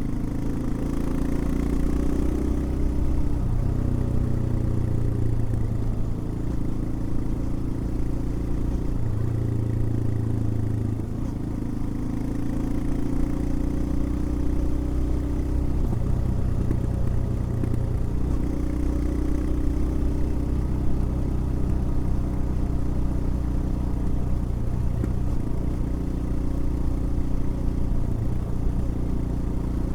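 Royal Enfield Himalayan's single-cylinder engine running under way, its pitch stepping up and down several times as the rider changes gear and throttle.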